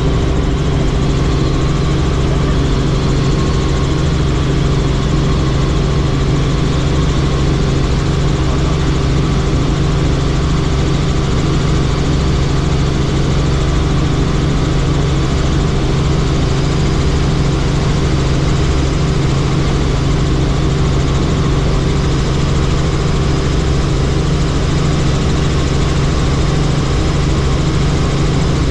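Helicopter engine and rotor running steadily in flight: a constant loud drone with a strong low hum that does not change.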